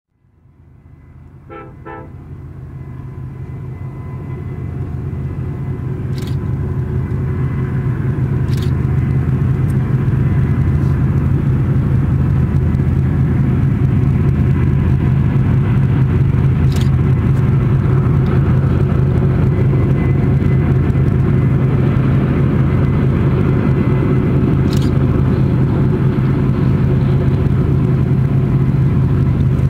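Four EMD and GE diesel-electric freight locomotives (SD70ACe, SD70M, ES44AC, AC44CW) working hard under load as they pull a heavy train upgrade, a steady low engine drone that fades in over the first several seconds. There are two short toots about two seconds in, and several sharp camera clicks.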